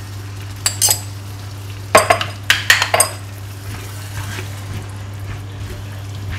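Metal teaspoon clinking against a nonstick frying pan: two light clinks, then a quick run of louder ones about two seconds in. After that a wooden spatula scrapes and stirs prawns through thick masala, with a light sizzle and a steady low hum underneath.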